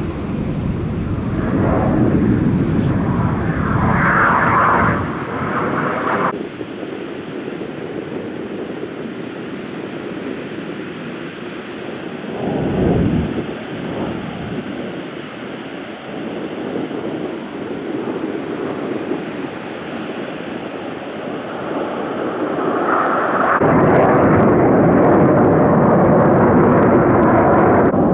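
Roar of Aermacchi MB-339 PAN jet trainers flying aerobatics overhead, swelling and fading as the jets manoeuvre, with a low thump about halfway through. The roar breaks off abruptly twice and is loudest near the end as a jet passes low.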